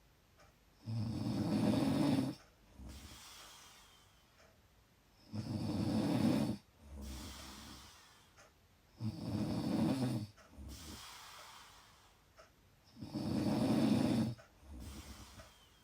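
Loud snoring: four deep, rattling snores about four seconds apart, each followed by a softer breathy sound.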